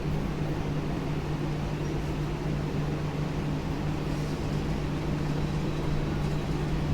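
Steady machine hum holding one constant low tone over a even whirring noise, with no change in pace or pitch.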